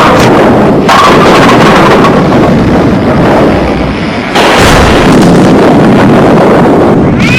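Explosion-like crashing noise, deliberately overloaded and distorted, at near full-scale loudness throughout, with abrupt changes in texture about a second in and again a little past four seconds.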